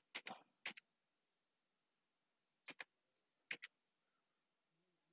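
Faint clicks of computer keyboard keys as a short word is typed: a quick run of clicks at the start, then two close pairs of clicks in the middle.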